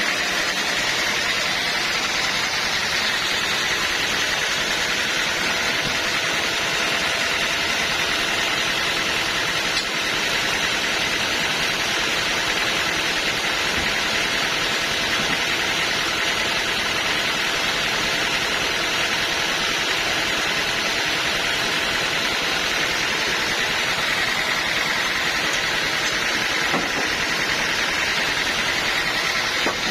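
Band sawmill running steadily: an even, continuous machine noise with a strong hiss and no breaks.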